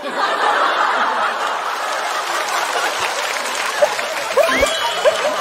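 Studio audience applauding and laughing, with a few voices calling out about four and a half seconds in.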